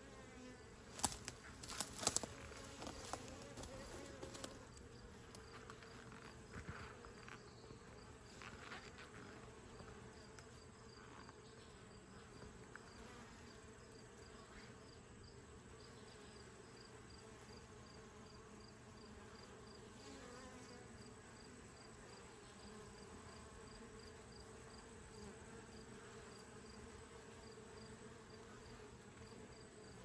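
Buckfast honeybees buzzing faintly as they fly in and out of the hive entrance. A few sharp clicks come between about one and four seconds in, and a faint, regular high chirping, several a second, runs through the second half.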